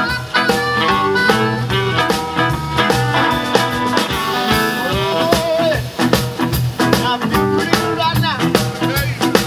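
Live blues band playing a boogie: drums, bass, electric guitars, keyboard and saxophone, with a harmonica (blues harp) played cupped against a handheld microphone.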